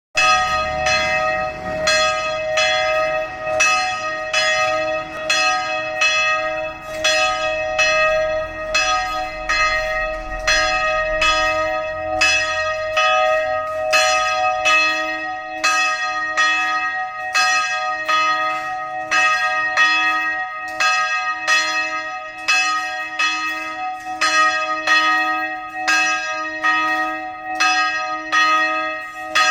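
Church bells ringing in a continuous peal, about two strokes a second, several tones ringing on between the strokes.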